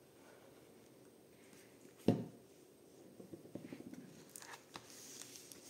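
A glue bottle set down on the table with a single knock about two seconds in, then hands rubbing and pressing glued paper flat onto card, a soft run of scraping and rubbing.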